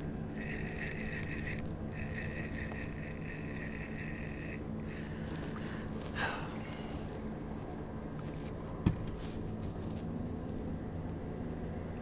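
Spinning reel being cranked to bring in a small crappie, a whirring retrieve in two stretches over the first five seconds. A short splash follows about six seconds in as the fish is swung out of the water, then a single knock near nine seconds, over a steady low hum.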